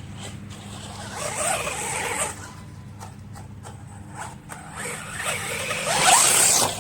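Electric RC monster truck on 3S running on dirt: two bursts of motor whine and spinning tyres, one about a second in and a louder one near the end, with a few sharp clicks in between.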